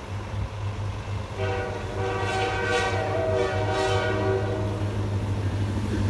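Freight locomotive air horn sounding one long, steady multi-tone chord. It starts about a second and a half in and lasts about four seconds, over the low steady rumble of the approaching train.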